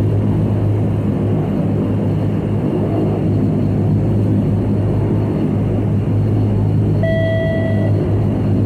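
Steady drone of a de Havilland Canada Dash 8-100's turboprop engines and propellers, heard inside the cabin, with a strong low hum. Near the end a single clear tone sounds for just under a second.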